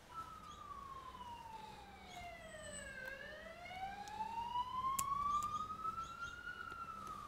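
Emergency-vehicle siren wailing in one slow sweep: the pitch falls for about three seconds, rises again for about three more, and starts to fall again near the end. A single sharp click about five seconds in.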